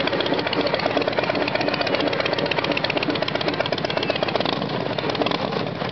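Cruiser motorcycle engine idling close by with a rapid, even pulsing beat.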